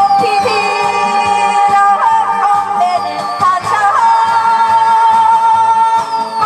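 A woman singing a Korean song into a handheld microphone over backing music with a steady bass beat. She holds long notes, the longest starting about four seconds in.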